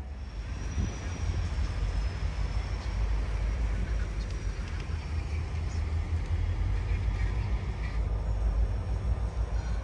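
Freight train rolling past at track level: a steady low rumble of the cars on the rails, with a faint thin high squeal over it.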